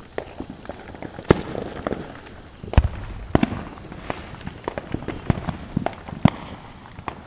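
Consumer fireworks going off in a string of sharp bangs, with a burst of rapid crackling about a second in, a deep boom near three seconds and more loud bangs after it.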